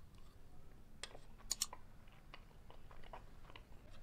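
Faint chewing of a mouthful of soft boiled soya chunks, with two sharp clicks about a second and a second and a half in.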